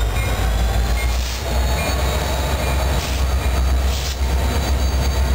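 Several Union Pacific diesel locomotives passing close by, their engines running with a deep, steady rumble.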